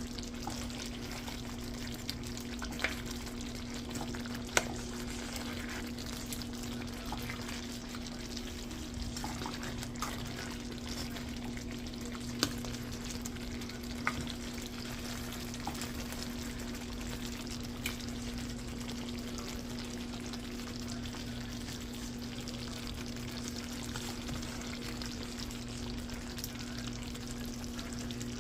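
Food frying in a pan with a steady sizzle as it is stirred, a utensil clacking sharply against the pan now and then, over a steady low hum.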